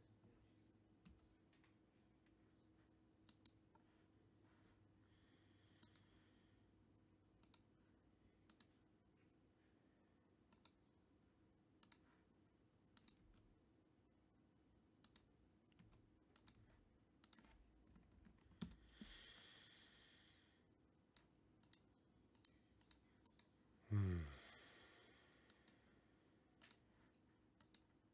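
Faint, scattered clicks of a computer mouse and keyboard. Near the end comes one brief, louder sound that falls in pitch, with a softer hiss a few seconds before it.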